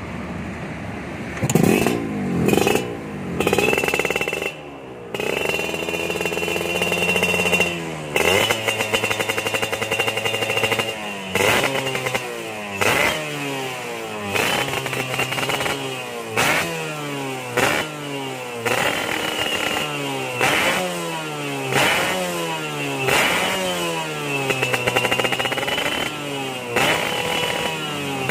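Suzuki Satria 120 two-stroke single-cylinder engine revving through a 'standar racing' aftermarket exhaust, a stock-shape expansion chamber with a chrome silencer. It is held at higher revs for a few seconds early on, then blipped over and over, about once every one and a half seconds, each rev rising sharply and dropping back.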